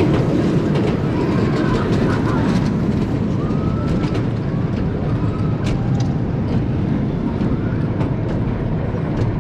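Gerstlauer roller coaster train climbing its vertical lift hill: a steady mechanical rattle and rumble from the lift, with many sharp clicks running through it.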